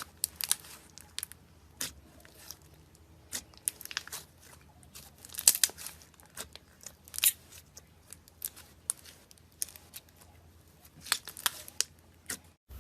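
Slime being squeezed and stretched by hand, giving off irregular sharp crackles and pops, some in quick clusters.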